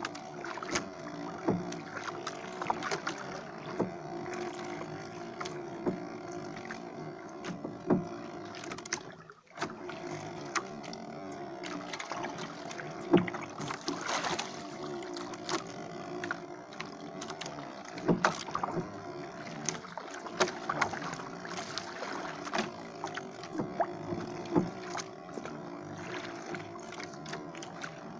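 Small wooden outrigger boat rocking at sea: water sloshing against the hull with scattered knocks and taps from the boat and fishing gear, over a steady low hum.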